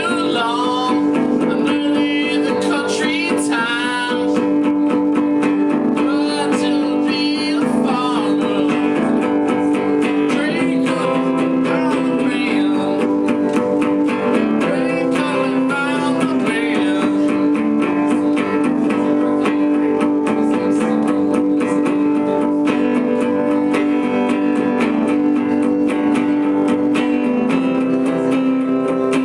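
Acoustic guitar being played steadily through a song.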